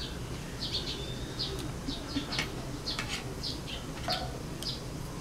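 Small birds chirping over and over in short high notes, with a few light clicks of a spoon and fork against a plate.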